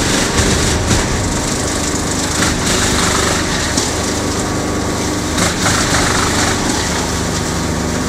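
Pezzolato PTH 1000/1000 E drum wood chipper, driven by an electric motor, chipping wood: a dense, irregular crackle of splintering wood over the machine's steady hum.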